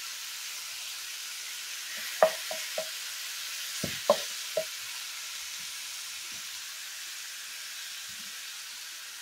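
Ground beef and pork sausage sizzling steadily in a skillet as they brown. A wooden spoon knocks against the pan a few times about two seconds in and again about four seconds in.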